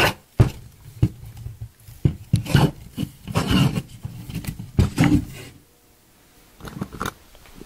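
Wooden poles of a rope-lashed tripod knocking and scraping as its three legs are spread and it is stood up: a series of sharp knocks with rubbing between them, easing off after about five seconds, then a couple more knocks near the end.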